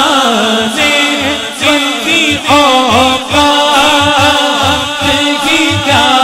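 A man singing a naat through a stage microphone, drawing out long ornamented notes that waver and bend in pitch, with a low pulsing beat underneath.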